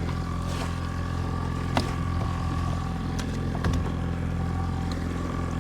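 Boat engine running steadily at trolling speed, with a few light knocks on the boat about two seconds in and again a little later.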